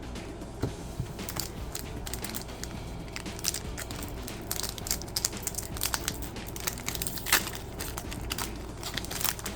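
Trading card pack wrapper crinkling and crackling as it is handled, with sharp crackles coming thicker from about three and a half seconds in.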